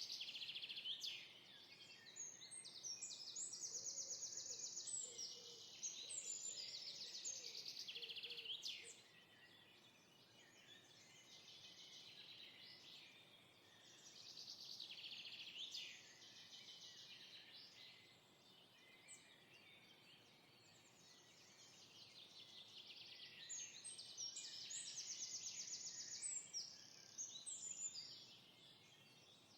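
Faint birdsong: several songbirds singing overlapping high chirps and rapid trills in phrases that swell and fade every few seconds.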